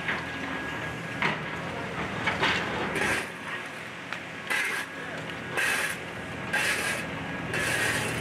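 Excavator's diesel engine running steadily while it tears into wooden house debris, with short crunches and scrapes about once a second.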